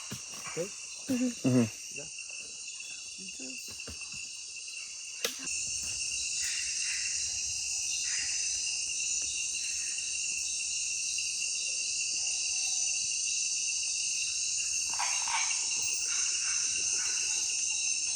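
Amazon rainforest insect chorus at night, crickets and other insects shrilling steadily and high. It gets louder about five seconds in. Brief low voices about a second in.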